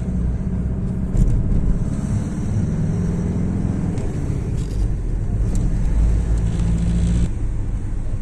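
Car being driven slowly along a town street, heard from inside the cabin: a low, steady engine and road rumble that drops a little about seven seconds in.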